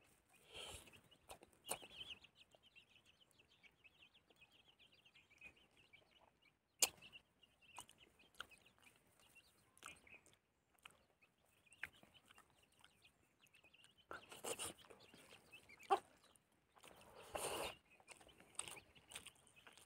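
Near silence: soft mouth sounds of eating by hand, a few lip smacks and clicks, while a bird chatters faintly in the background in two stretches.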